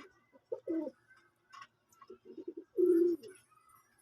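Domestic pigeons cooing: two short low notes about half a second in, then a run of quick pulsing coos and a longer, louder coo near three seconds.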